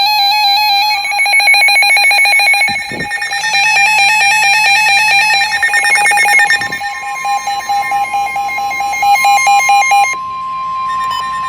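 NOAA weather radios sounding their alert alarms for a severe thunderstorm warning: loud, rapidly pulsing electronic beeps with harsh overtones. About seven seconds in, the steady single-pitch NOAA warning alarm tone joins them, and the beeping stops at about ten seconds, leaving that tone alone.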